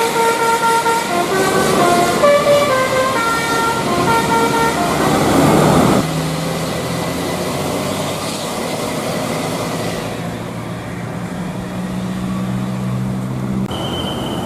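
Indonesian bus's Basuri 'telolet' horn playing a tune of held notes that step up and down in pitch for about five seconds. A swelling rush of noise cuts off about six seconds in, after which a low steady hum runs, and a single high tone sounds near the end.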